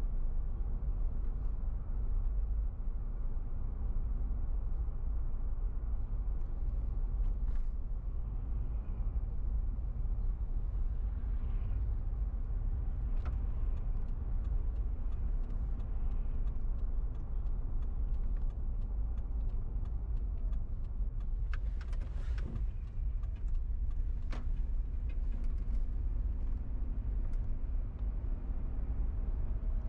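A car driving through city streets: a steady low rumble of engine and road noise, with scattered faint clicks and a brief louder rush about 22 seconds in.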